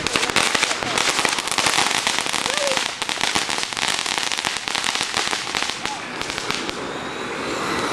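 Fireworks mounted on remote-control cars going off in a dense, rapid crackle of pops. The crackle thins out near the end into a steady hissing spray.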